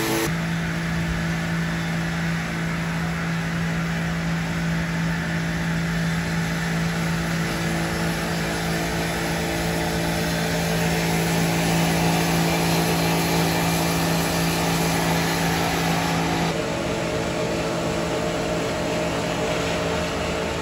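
Sawmill machinery running, a steady motor hum over a broad wash of mechanical noise. The sound changes abruptly about sixteen seconds in, when the hum drops away.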